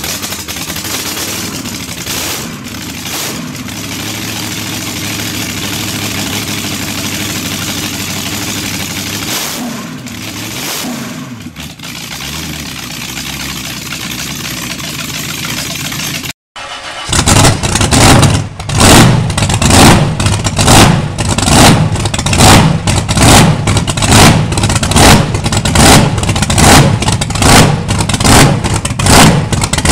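A supercharged racing engine running steadily, rising and falling in pitch as it is blipped. After a brief cutout, a blower-topped V8 on an engine run stand runs louder, with an even heavy pulse about once every three-quarters of a second.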